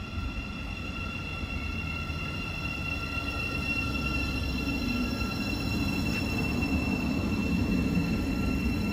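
A Class 717 Siemens Desiro City electric multiple unit pulling into a platform and braking to a stop: a low wheel rumble that grows louder, with a steady high-pitched squeal on top.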